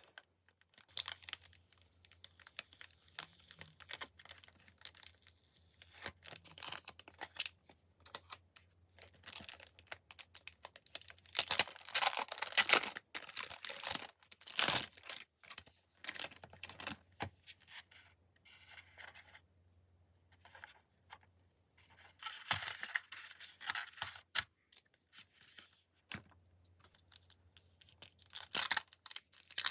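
Merchandise packaging being handled and unwrapped by hand: irregular crinkling, rustling and tearing in bursts, with the loudest tearing about halfway through and again near the end.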